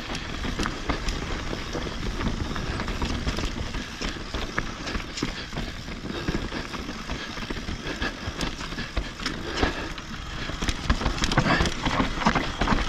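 Mountain bike rolling down a rocky dirt singletrack: tyres crunching over loose rock and gravel, with frequent short clatters and knocks from the bike over the rough ground, over a steady low rumble.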